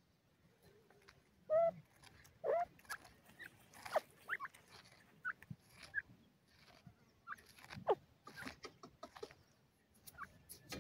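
Grey francolins dust-bathing in loose soil: soft, scattered scratching and rustling of earth, with a few short chirping calls, two clear ones about one and a half and two and a half seconds in.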